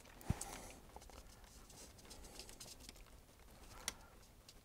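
Faint handling noises as heating-control wires are worked into a plastic connector strip in a junction box: light rustling and small clicks, with a sharp knock about a third of a second in and a crisp click near the end.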